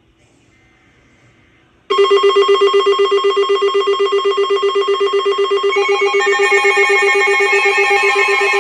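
Several NOAA weather radios sounding their alert alarms for a Severe Thunderstorm Warning. About two seconds in, a loud pulsing alarm tone starts abruptly, and from about six seconds in further radios join with more overlapping tones.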